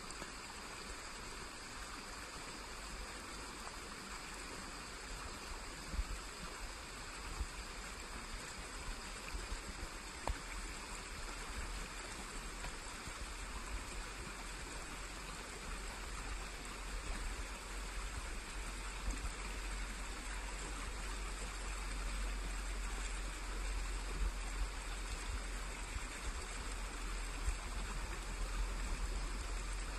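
A small forest stream flowing and trickling steadily, with a low rumble underneath and a few soft thumps.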